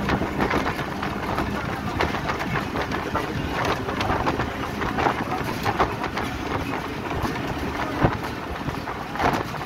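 Inside a moving road vehicle: steady engine and tyre noise with wind at the open window, and frequent irregular rattles and knocks from the body.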